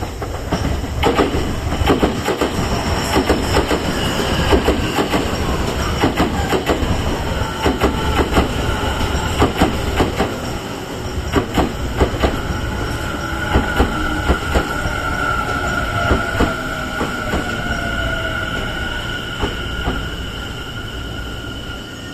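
Tobu 50090-series electric train pulling into a station. Its wheels click over rail joints and points. A motor whine falls slowly in pitch as the train slows, and a steady high-pitched tone runs through the second half.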